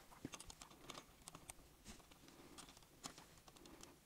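Near silence, with a few faint, short clicks of plastic building-block parts being handled.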